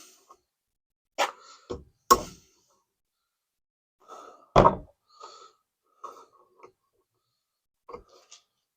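Hammer tapping a long nail against a rubber motor cradle bushing to drive it out of the steel cradle: a handful of sharp metallic knocks at uneven intervals, the loudest about halfway through, with lighter taps between. The bushing is stuck and does not move under the blows.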